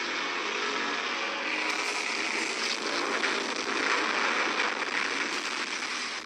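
Sci-fi battle sound effects: a continuous noisy explosion blast that swells and is loudest about four seconds in. The sound is thin, with almost no bass.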